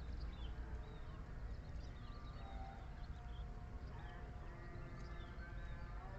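Many small wild birds chirping in short, quick calls over a steady low rumble. A faint held tone with several pitches runs through the second half.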